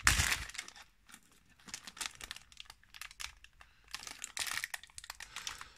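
Shiny black plastic wrapper crinkling as hands pull it open, in irregular bursts of crackling with short pauses between; loudest right at the start.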